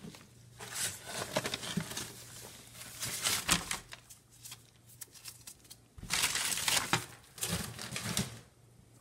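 Dry shredded cardboard bedding in a plastic worm bin rustling and crackling as a gloved hand stirs through it, in several bursts, the loudest about six to seven seconds in.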